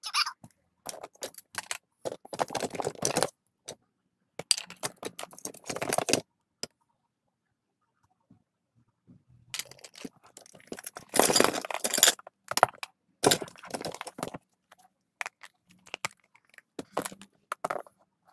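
Plastic action figures clattering and knocking together as a hand rummages through a cardboard box of toys, in irregular bursts with a pause of about three seconds midway.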